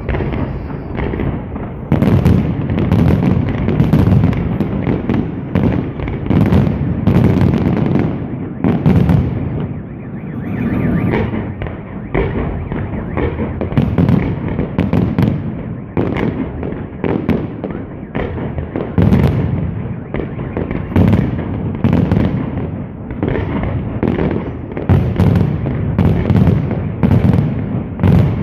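Fireworks display: a rapid, continuous barrage of aerial shells bursting, with sharp bangs roughly every second over a dense low rumble of echoing explosions.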